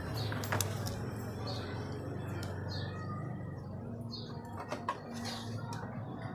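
Scattered light clicks and knocks of a washing machine's plastic control-board housing being handled and unscrewed, over a steady low hum, with a short high chirp recurring about once every second or so.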